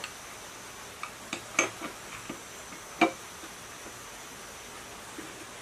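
Light metallic clicks and knocks of an engine piston being handled and fitted into the cylinder bore of a diesel engine block: a quick cluster of taps between one and two seconds in, then a sharper knock about three seconds in.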